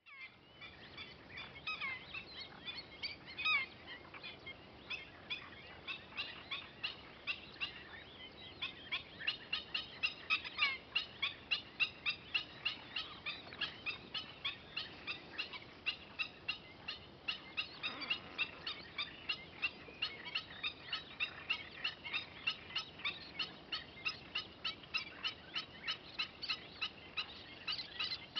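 Little terns calling: at first scattered short chirps, then a steady run of short, high calls repeated about two to three times a second.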